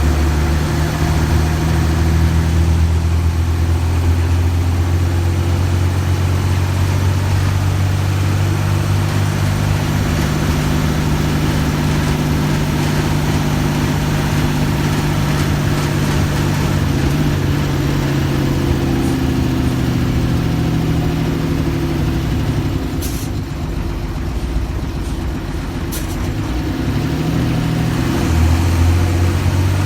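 Mercedes-Benz OF-1315 bus's diesel engine running steadily, its pitch shifting up and down as the engine speed changes. Two short sharp clicks sound in the second half.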